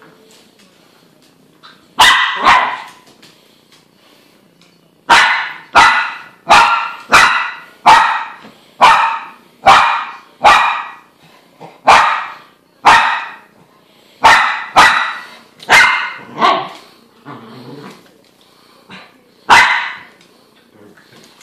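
A dog barking playfully in sharp, loud single barks: a quick pair, then a long run of about one or two barks a second with short pauses, then one more bark near the end.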